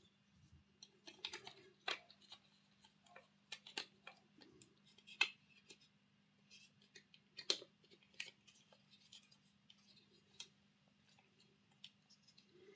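Faint, scattered clicks and taps of a Hornby Class 3F OO-gauge model locomotive's plastic body shell and metal chassis being handled and fitted together, the sharpest about two, five and seven and a half seconds in. A faint steady low hum sits underneath.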